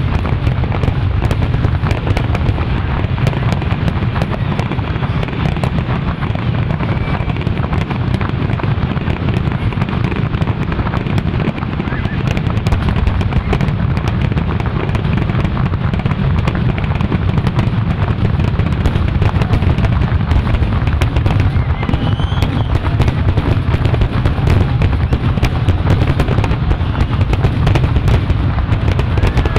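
Fireworks finale: many aerial shells bursting in quick succession, their booms running together in a loud, unbroken barrage.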